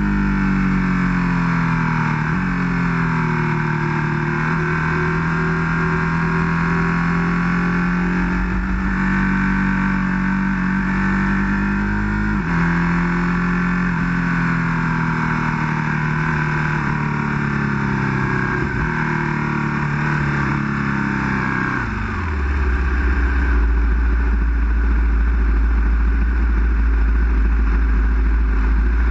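Ducati 1299 Panigale S's twin-cylinder engine at part throttle in third gear, its pitch stepping with gear changes. About three quarters of the way through, the engine note falls away and settles into a steady low idle as the bike rolls on in neutral.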